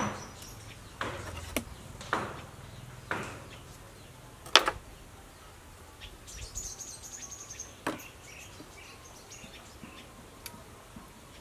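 Intermittent wet squelches and sharp slaps as raw plucked quail are handled and cleaned by hand over a plastic basket, several separate sounds with the loudest about halfway through. Birds or insects chirp faintly in the background.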